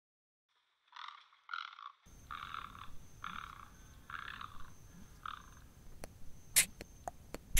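Six short, croaking animal calls, one every second or less, over the first five and a half seconds. Sharp clicks and knocks follow from about six seconds in, a few of them loud.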